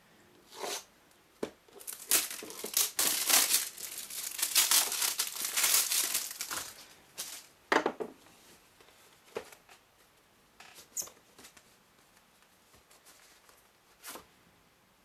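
Packaging of a boxed pair of earbuds being torn open and crumpled: dense crinkling and tearing for about five seconds starting about two seconds in. Then a few scattered clicks and taps as the box is handled.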